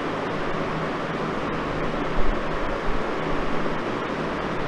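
Steady hiss of background noise, with a faint low hum underneath.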